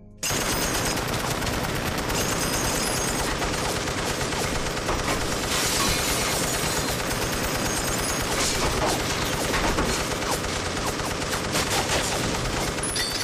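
M60 machine gun on a motorized swivelling mount firing one long unbroken stream of automatic fire, starting suddenly a moment in.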